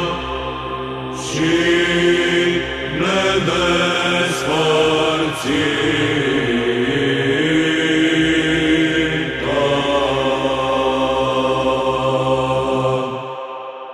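Byzantine (psaltic) chant in the first tone (Glas 1): voices sing a long, drawn-out melodic phrase over a held low drone note (ison). The phrase fades out about a second before the end.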